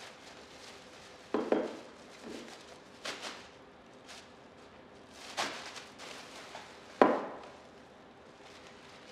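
A plastic bag being handled and objects knocked against a tabletop: a string of separate knocks and rustles. The loudest, a clunk, comes about seven seconds in.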